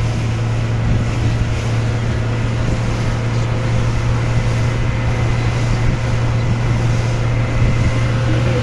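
Engine of a small open boat running steadily underway, a constant low drone, with wind noise over it.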